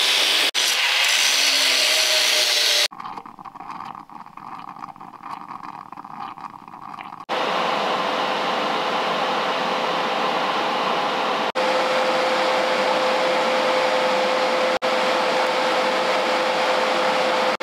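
Angle grinder cutting away the weld on a threaded sleeve. After a quieter stretch it gives way to TIG welding: a steady hiss with a constant hum, cutting out briefly twice.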